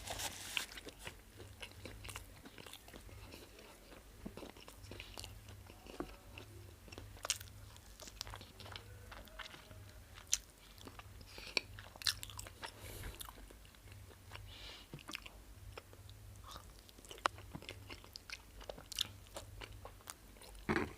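Close-miked eating sounds: a person chewing mouthfuls of starch with black soup, with scattered sharp wet mouth clicks and smacks. A low steady hum runs underneath.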